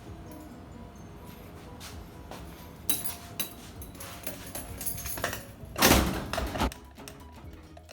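Stainless steel door being worked: a couple of sharp clicks, then a loud metallic rattle lasting under a second about six seconds in.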